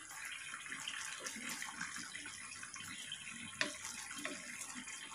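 Coconut-milk stew bubbling at a boil in a stainless steel pot while a wooden spatula stirs it, with one sharp knock a little past halfway.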